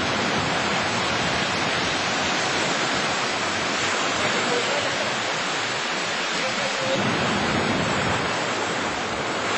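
Sea surf washing on a sandy beach, a steady rushing noise with no let-up.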